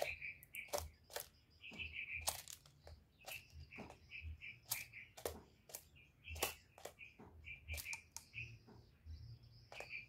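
A caged spotted dove preening close to the microphone: irregular sharp clicks and feather rustles, a few each second. Short high chirps of birds are heard between them.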